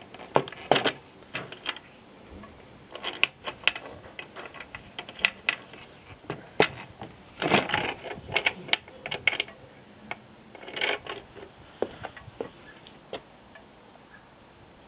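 Irregular clicks and light knocks of a Clark pump-up mast's metal tube sections and clamp collars being handled, coming in short clusters with pauses between.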